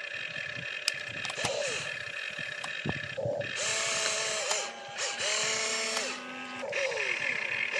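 Electric motors and gearboxes of a toy RC excavator whining in short spells as the arm digs, lifts and swings toward the dump truck. Each spell rises in pitch as the motor spins up and falls as it stops, with two longer, steady runs in the middle.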